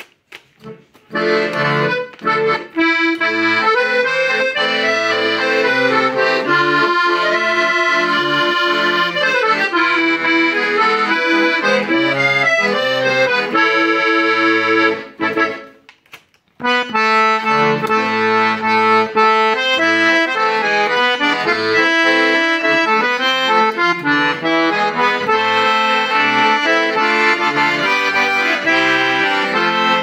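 Hohner Atlantic IV de Luxe piano accordion being played: a right-hand melody on the treble keys over left-hand bass-button notes and chords. The playing falls silent briefly near the start, then stops for about a second and a half midway before picking up again.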